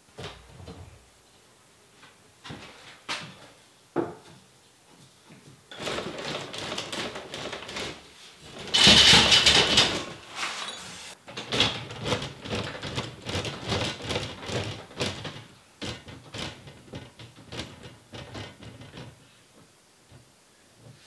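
Handling noises of a wooden large-format bellows camera: scattered knocks and clicks, then a busy stretch of scraping and clattering as it is moved, loudest about nine seconds in.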